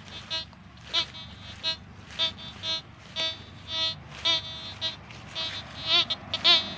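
Metal detector giving short electronic beeps, about two a second, as its coil is swept over the ground. In the last second or so the beeps get louder and warble in pitch.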